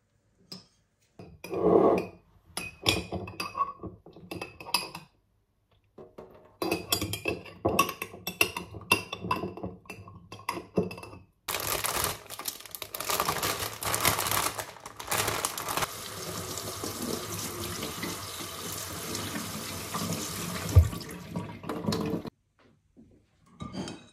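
A metal spoon clinking and scraping in a ceramic bowl while stirring. Then a kitchen tap runs steadily into a stainless steel sink for about ten seconds, rinsing greens in a strainer.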